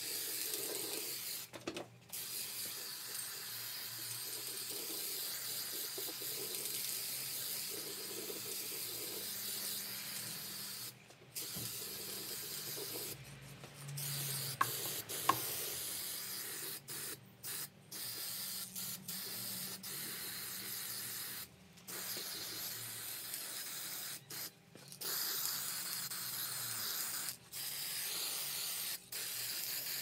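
Aerosol spray-paint can hissing in long sprays, broken by several short pauses. A couple of sharp clicks come about halfway through.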